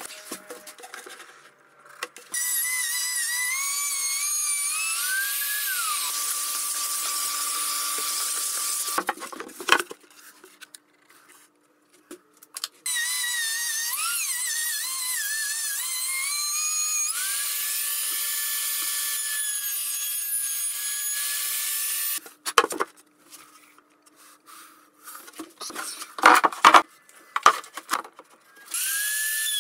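Plunge router cutting a groove in timber, running in three long stretches of high-pitched whine whose pitch dips and recovers as it works through the wood. Between the runs there are short knocks and clatter as the router is set down and repositioned.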